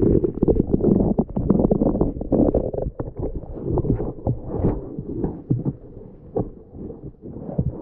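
Muffled underwater rumble with many small knocks and thuds, heard through a camera submerged under the ice as it is moved among water plants. It is loudest for the first few seconds, then quieter with scattered knocks.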